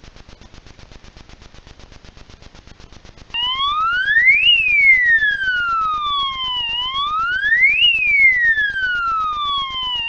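Siren of an ANIDERS animal-deterrent alarm, sounding to drive off wild animals. About a third of the way in it starts wailing, rising quickly in pitch and falling slowly, twice over. A rapid, even ticking runs under it and is heard alone before the siren starts.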